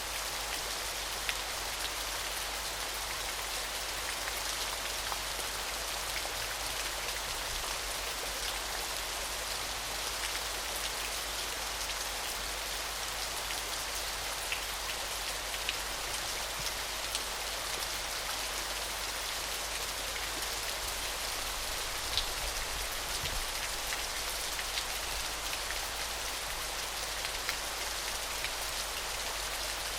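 Small, gentle waterfall: a steady, even splashing hiss of falling water with scattered droplet ticks on top.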